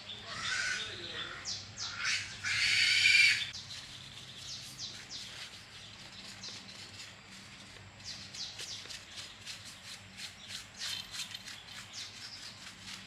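Birds calling. The loudest call lasts under a second and comes about two and a half seconds in, followed by a long run of short, quick chirps or ticks.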